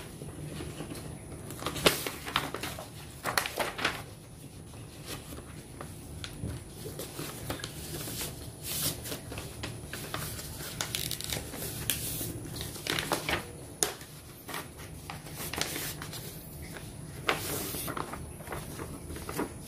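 Sheets of paper being handled and crumpled in irregular bursts, with scattered sharper rustles, as a paper liner for the gecko's tub is readied.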